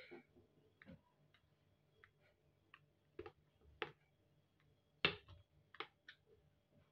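Rolling pin clicking and knocking on a tiled counter while rolling out dough: short, sharp, irregular clicks, the loudest about five seconds in.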